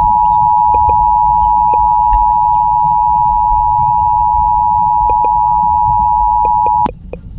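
Emergency Alert System two-tone attention signal, two steady pitches sounding together as a loud continuous tone over low radio static. It cuts off abruptly about a second before the end, leaving only the static.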